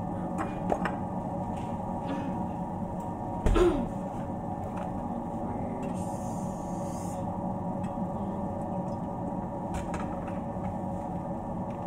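Cooking oil poured from a plastic bottle into a frying pan, heard as a short soft hiss about six seconds in, over a steady background hum. There are light clicks and knocks from the bottle and pan, and one louder knock about three and a half seconds in.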